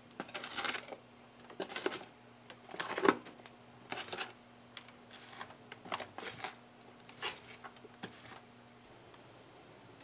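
Metal spoon stirring and scooping damp, steaming potting soil in a disposable aluminium foil pan, with gritty scrapes of soil and crinkles of the foil in a run of uneven strokes, the loudest about three seconds in, stopping shortly before the end.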